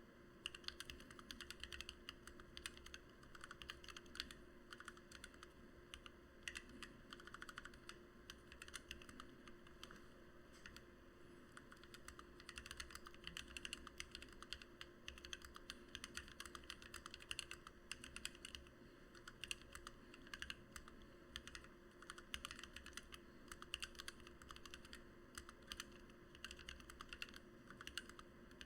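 Continuous fast typing on a Lily58 split mechanical keyboard with lubed and filmed Gateron Black Ink V2 linear switches, PBT OEM-profile blank keycaps and an acrylic plate and bottom: a dense, uneven run of soft key clacks.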